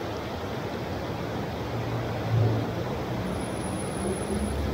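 Heavy rain pouring down on a city street, a dense steady hiss. About two seconds in, a low vehicle engine hum comes in and grows louder toward the end.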